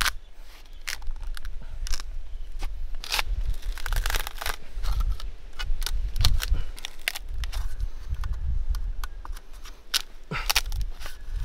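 Machete chopping and prying at the bark of a coconut palm trunk: irregular sharp strikes of the blade into the fibrous wood, with crackling and tearing as strips of bark are split away.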